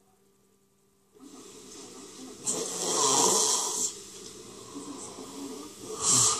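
A person gasping for breath, the breaths snore-like and noisy: a long, loud gasp about two and a half seconds in, then a shorter one near the end.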